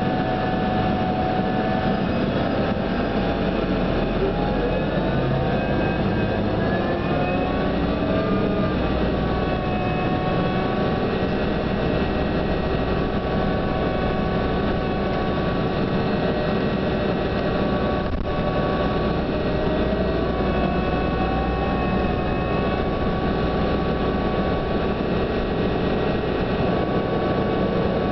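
New Flyer DE42LFA diesel-electric hybrid bus under way, heard from inside the cabin: a steady running noise with several whining tones that glide up in pitch a few seconds in and again about two-thirds through as the bus changes speed. This is the unusual whine the bus is known for, of unknown cause.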